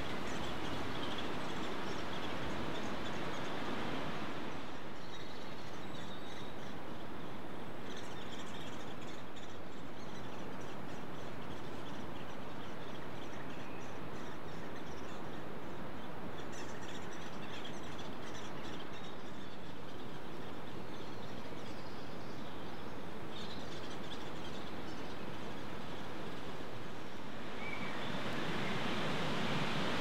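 Steady rushing woodland background noise, with faint, short, high bird chirps repeating through the middle stretch.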